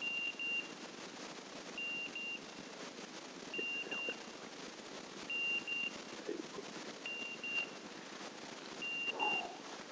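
A setter's beeper collar sounding: pairs of short, high electronic beeps, one pair about every 1.8 seconds.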